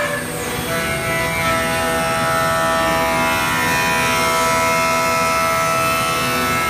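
CNC router carving a wooden rifle stock: a steady whine of several tones, which step to new pitches about a second in and then slowly shift as the machine moves through the cut.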